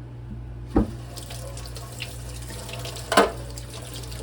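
Kitchen tap turned on and running, rinsing the food and grit out of a split chicken gizzard, with two sharp knocks, about a second in and about three seconds in.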